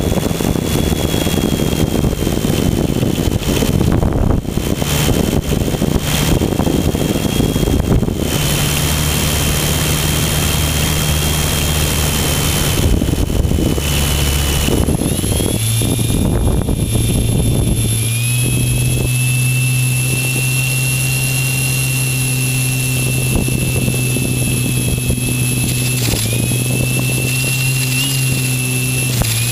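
Electric motor and propeller of a GWS Slowstick RC park-flyer in flight, heard from a camera mounted on the plane: a steady high motor whine over a low propeller buzz, with wind rushing past. The pitch shifts a few times as the throttle changes, dropping a little at about 18 seconds and dipping briefly near the end.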